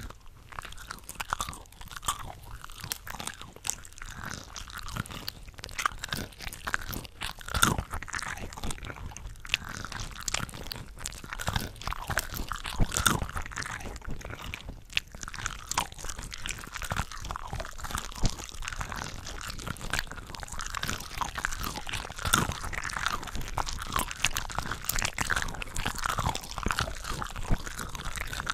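Close-miked eating of cooked shrimp from a shrimp cocktail platter: dense biting, snappy crunching and wet chewing, with several eating tracks layered over one another so the bites overlap continuously.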